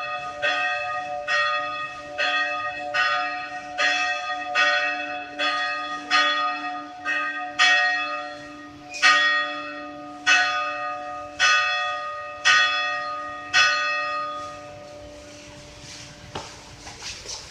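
Church bell tolling in a steady series of strokes, each leaving a long hum under it. The strokes come a little under a second apart, slow to about one a second, and stop about 14 seconds in, leaving the ring to fade away.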